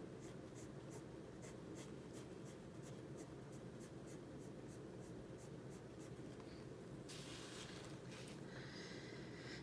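Prismacolor colored pencil scratching on coloring-book paper in quick, even shading strokes, about three a second, with a couple of longer strokes near the end.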